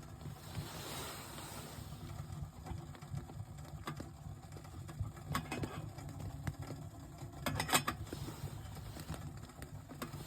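Steady patter of rain on the hot tent's fabric, with a sharp click about halfway through and a short rattle of loud clicks a couple of seconds later.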